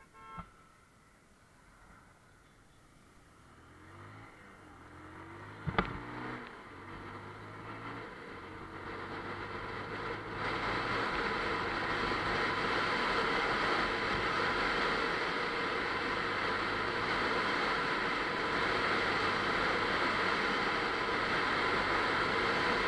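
Bajaj Pulsar 150's single-cylinder engine pulling away and accelerating, its note rising in several steps as it goes up through the gears, then running steadily at cruising speed under loud wind rush. A sharp knock sounds about six seconds in.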